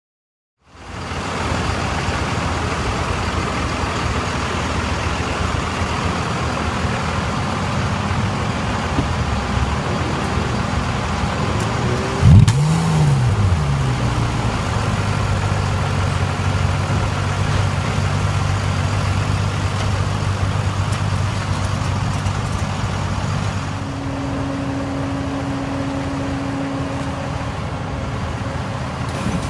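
Ferrari Sergio's mid-mounted 4.5-litre V8 idling steadily, blipped once about halfway through: the revs rise sharply and fall straight back to idle. Near the end the sound drops to a quieter steady hum with a thin whine over it.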